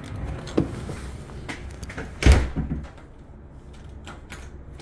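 A door shutting with a solid thump a little over two seconds in, after a lighter knock about half a second in and a few small clicks.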